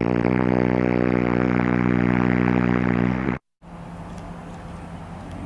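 A loud, steady droning tone with many overtones, held without change for about three and a half seconds and then cut off abruptly. After a moment of silence a quieter steady hum follows.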